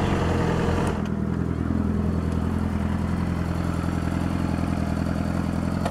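Yamaha YZF-R6's inline-four engine running steadily at low revs as the bike rolls slowly. A hiss over it drops away about a second in.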